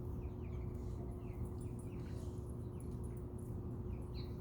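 Outdoor ambience of birds chirping: short downward chirps, about two a second, over a steady low hum.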